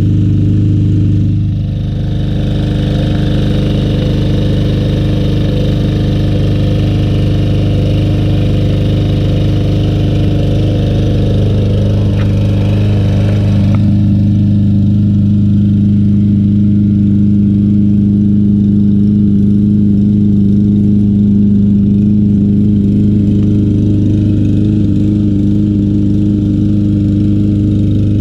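Briggs & Stratton 625EX 150cc single-cylinder mower engine running steadily but not running well, still burning old stale gas after sitting a long time. There is a brief dip just after the start, and about halfway through the sound loses some of its hiss.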